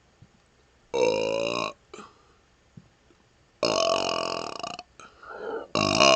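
A man burping loudly three times: a burp falling in pitch about a second in, a longer one in the middle, and another that starts near the end, with a few small burp sounds between them.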